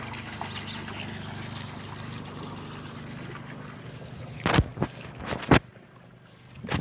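Water trickling over a steady low hum. Several sharp loud knocks come in the second half, and after them the hum drops away.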